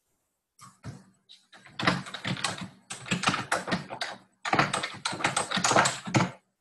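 Computer keyboard typing: a fast run of keystrokes starting about half a second in, with a brief pause about four seconds in before a second run.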